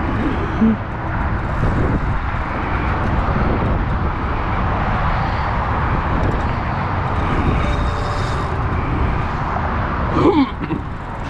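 Steady outdoor noise, a low rumble with hiss above it, like wind buffeting the microphone. There is a brief gliding higher sound a little after ten seconds in.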